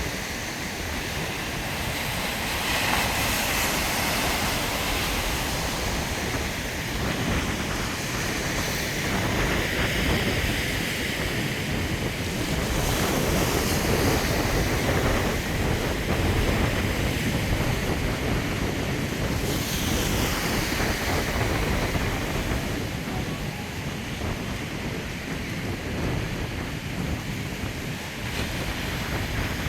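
Strong gusty wind buffeting the microphone, a low rumbling roar, over the continuous wash of ocean surf breaking; the noise swells and eases every few seconds with the gusts and waves.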